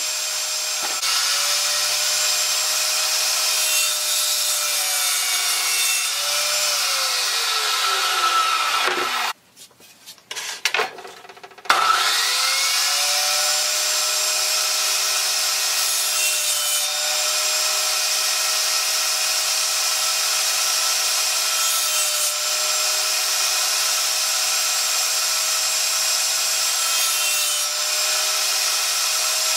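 Benchtop table saw running and ripping half-inch plywood, a steady motor-and-blade whine that dips slightly each time the blade takes the wood. About seven seconds in the whine falls as the saw winds down. A few seconds later it starts up again, rising back to speed, and it begins to wind down once more at the very end.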